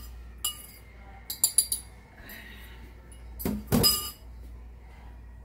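A fork clinking and scraping against a bowl as beaten eggs are tipped out into a frying pan: a few sharp ringing clinks, then a louder clatter about three and a half seconds in.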